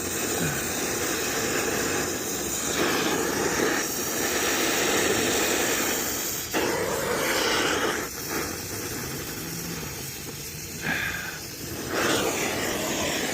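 Strong wind buffeting the microphone outdoors, a rushing noise that rises and falls in gusts and eases for a few seconds in the second half.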